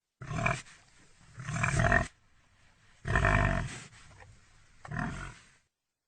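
Pig grunting: four separate rough calls, the second and third longer than the others.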